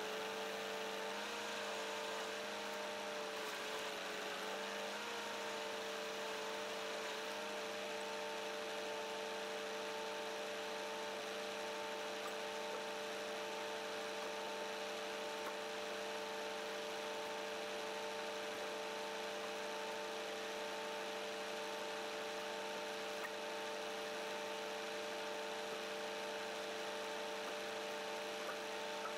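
The Scania truck's engine and the truck-mounted timber crane's hydraulic pump running steadily, a hum with a few held whining tones that waver slightly in the first few seconds and then hold steady.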